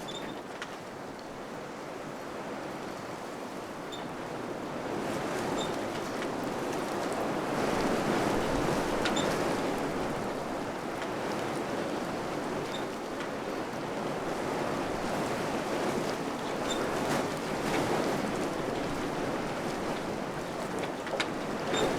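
Wind blowing through a village in gusts, building up about a quarter of the way in and then surging and easing, with a few faint ticks.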